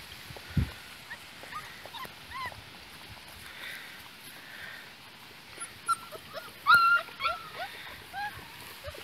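Young Great Pyredogue puppies whining and yipping in short, high, rising-and-falling cries. The longest and loudest cry comes about two-thirds of the way through. A dull low bump sounds just after the start.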